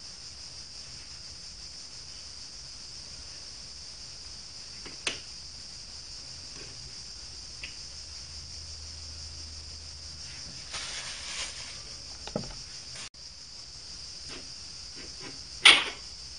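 Change gears being handled and taken off the gear train of an Optimum D180 x 300 lathe: scattered light clicks and a knock, a short scrape about two-thirds of the way in, and a loud sharp clink with a brief ring near the end as a gear comes off its shaft. A steady high hiss runs underneath.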